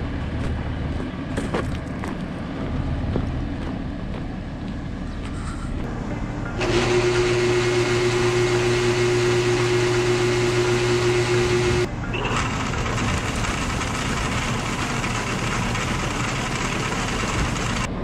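Tractor running at the feed bins, then a grain auger loading barley into a feed mixer wagon. About a third of the way in it jumps louder into a steady machine hum over the rush of pouring grain, and near two-thirds it cuts to a steady rush without the hum.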